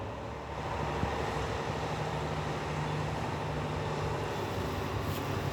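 Steady low rumble and hum of road traffic, with no sharp sounds standing out.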